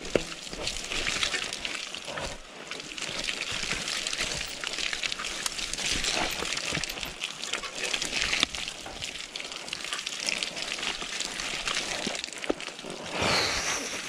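Mountain bike descending a muddy trail: a steady noisy rush of the tyres through wet mud, with frequent clicks and rattles from the bike, and a louder patch near the end.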